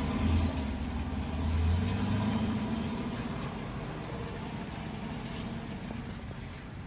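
A motor vehicle's engine running with a low hum, loudest in the first couple of seconds and then slowly fading.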